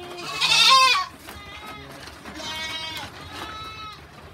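Goats bleating: one loud, high bleat about half a second in, then several quieter bleats from the herd.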